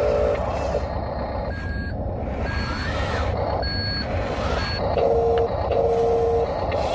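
Reverse-warning beeper from an Amewi G485E RC wheel loader's sound module as it backs up: four short beeps about a second apart, followed by two longer, lower tones near the end, over a steady low hum.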